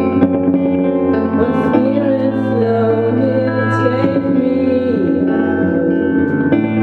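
Live song: sustained, ringing electric guitar chords with a singing voice over them. The sung phrase comes in about a second and a half in and holds a wavering line until about five seconds in.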